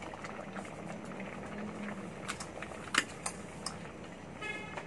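Pot of tapioca pearls (sago) boiling and thickening, a steady bubbling with small pops as added sugar dissolves. A sharp clink about three seconds in, with a few lighter ones, as a metal spoon goes into the aluminium pot to stir.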